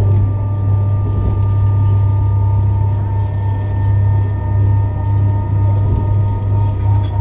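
Eurostar Class 373 high-speed train running at speed, heard from inside the carriage: a steady low rumble with several steady whining tones over it, which change about three seconds in.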